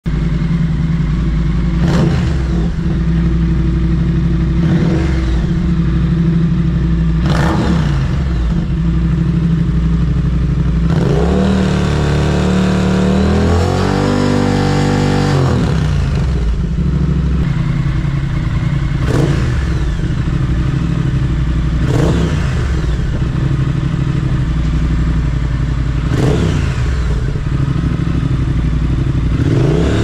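Triumph Speed Twin's parallel-twin engine running through a Nuke aftermarket exhaust with x-pipe: a steady idle broken by several quick throttle blips and, near the middle, a longer rev held for a few seconds before dropping back.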